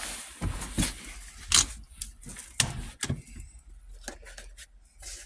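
Plastic interior trim being slid and pushed back into place by hand: a string of separate clicks and knocks, the loudest about a second and a half in and again a second later.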